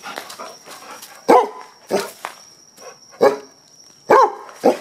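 Dog barking in play: about five short, sharp single barks, roughly a second apart.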